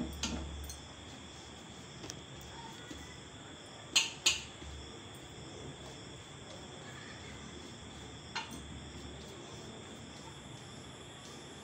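Quiet handling sounds of fingers spreading spice paste over colocasia (arbi) leaves on a steel plate. A few sharp clicks stand out: two close together about four seconds in, and one more about eight seconds in. A steady high-pitched background tone runs underneath.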